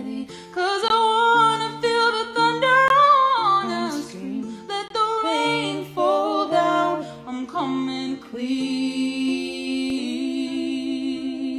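Two women's voices singing a wordless melody in harmony over acoustic guitar, settling into a long held chord about eight seconds in.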